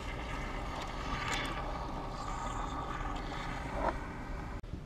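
Steady low hum with a couple of faint handling noises, about a second in and near the end, as a wrench loosens the high-pressure fuel line's fitting at the fuel rail.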